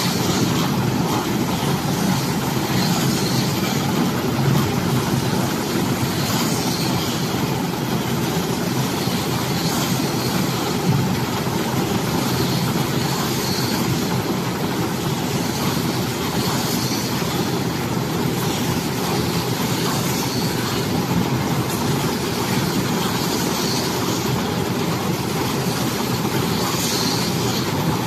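Round silage baler and bale wrapper machine running with a steady mechanical noise.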